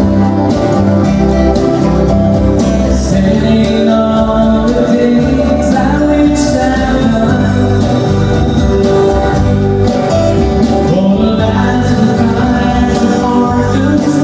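Live country music: an acoustic guitar strumming with a man singing.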